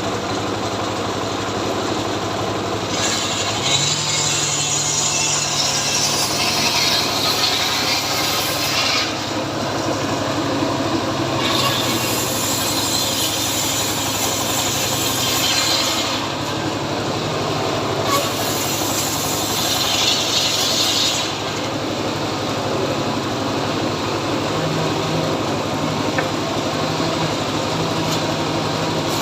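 Chainsaw engine running the whole time, cutting into a tree trunk in three spells: about six seconds, then four, then three. Between the cuts it drops back toward idle.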